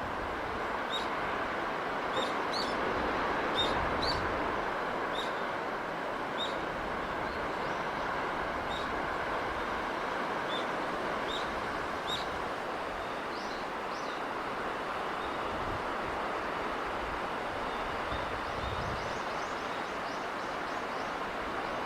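Steady rushing of sea breeze, with a bird repeating a short high chirp about once a second through the first half and fainter, higher chirps near the end.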